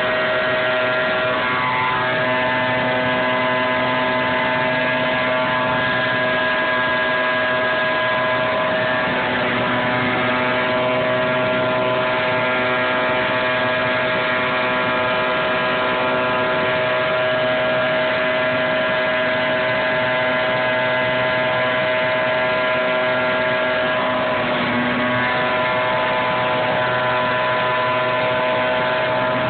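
High-power trailer-mounted leaf vacuum running steadily: its engine-driven fan gives several steady tones over a loud rush of air drawn through the wide metal intake hose. The pitch dips briefly near the end.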